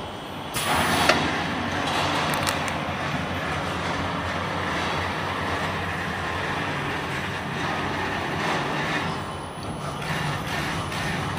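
Air bubble pouch making machine with its stacking conveyor running: a steady mechanical din with a low hum, and a brief louder rush of noise about half a second in.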